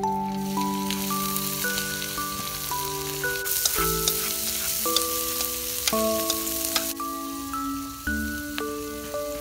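Shrimp and squid sizzling in a hot wok of oil and garlic as they go in and are stirred with chopsticks; the sizzle grows louder about a third of the way in and falls back near the end. Background music of single mallet-like notes plays throughout.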